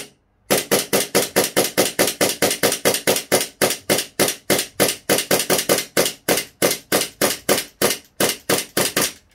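Double Bell 2011 Hi-Capa full-metal green-gas blowback gel blaster pistol fired in rapid semi-auto shots, about five a second, each shot a sharp crack of the slide cycling. It is shooting out the gas left in the magazine, and the shots come a little slower near the end.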